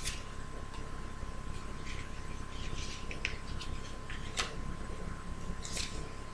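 Tarot cards being shuffled and handled: scattered short, crisp snaps and rustles of card stock, one sharper snap a little past the middle, over a steady low hum.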